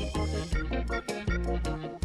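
Background music with a steady beat, bass and keyboard notes.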